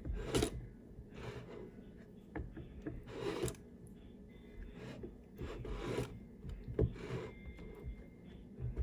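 Handling noise: about six short scraping, rubbing strokes, a second or more apart.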